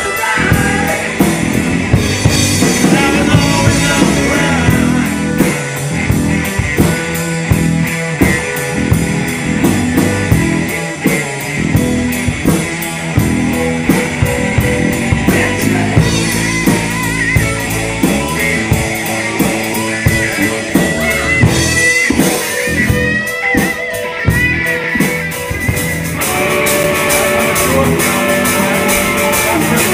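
Live rock band playing loud: electric guitar, bass guitar, drum kit and a Hammond keyboard, with a male lead singer.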